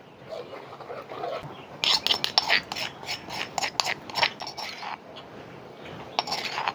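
Metal spoon scraping ground chilli paste out of a stone mortar and off the stone pestle: a run of quick rasping scrapes and clinks starting about two seconds in, and a few more near the end.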